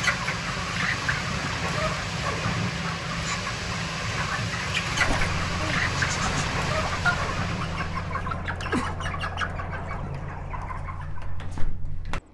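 A large flock of broiler chickens clucking and chirping over a steady low hum. Near the end the barn door is shut with a few sharp knocks, and the flock sound cuts off suddenly.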